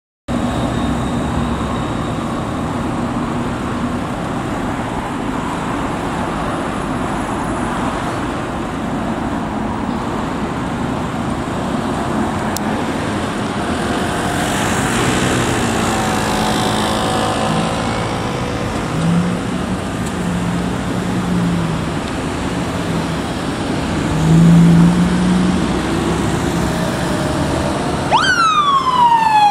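Steady street traffic with passing engines, one of which rises to a louder hum about three quarters of the way through. Near the end a police motorcycle siren, that of a Yamaha FJR1300P white bike, starts with a quick rising whoop and then falls away in a wail.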